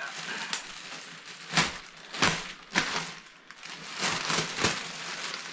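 Clear plastic bag crinkling and rustling as it is worked off a boxed unit, with several louder rustles through the middle.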